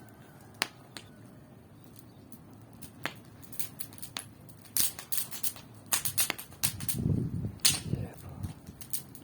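Bonfire of old junk crackling: scattered sharp pops and snaps, sparse at first and coming thicker from about halfway on, with a low rumble about seven seconds in.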